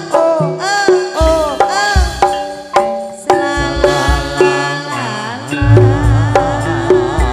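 Live Javanese campursari music: a melodic line plays quick rising-and-falling phrases over hand-drum strokes, with deep bass beats coming in about a second in.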